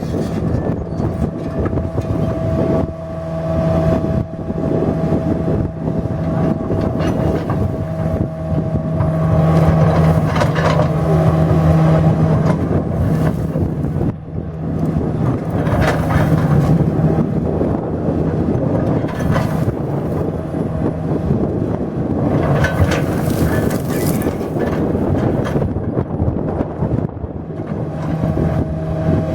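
Engine of a heavy demolition machine running steadily, with a few short louder noises about halfway through and near the end.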